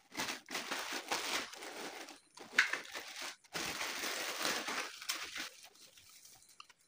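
Plastic packaging bag crinkling as the head unit's wiring harness and cables are unpacked and handled, in irregular bursts that die down near the end.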